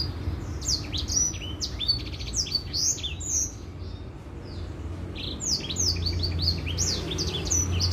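An edelsanger finch singing a fast twittering song of sharp chirps and quick falling whistles, with a pause of about two seconds midway, over a low steady hum.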